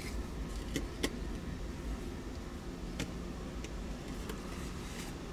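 Steady low rumble of a road vehicle, with a few sharp ticks about one second and three seconds in.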